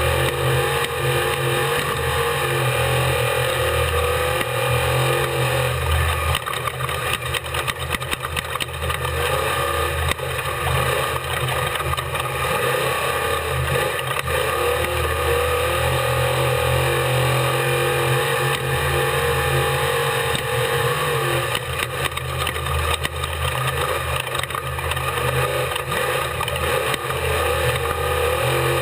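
Off-road race vehicle's engine running hard and steady, heard on board, with its pitch rising and falling a little. There is a stretch of rattles and jolts about a quarter to a third of the way in.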